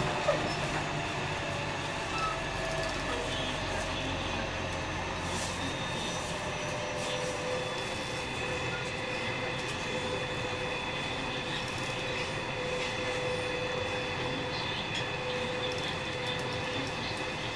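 JR West 207 series 1000-subseries electric train with Toshiba GTO inverters, running and heard from inside the car. Steady rail noise carries several held whining tones, and a low rumble fades about six seconds in.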